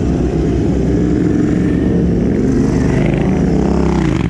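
Royal Enfield 650 parallel-twin race motorcycles riding slowly past close by, one after another, engines running steadily; near the end the nearest bike's note rises and then slides down as it goes by.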